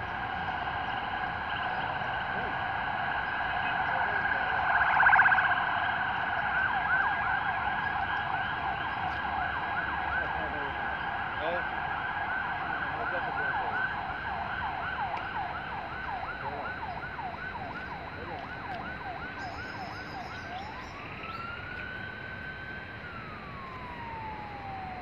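Emergency-vehicle electronic siren. It holds a steady tone with a brief louder blast about five seconds in, then switches to a fast yelp of about three sweeps a second, then to a slow wail rising and falling near the end.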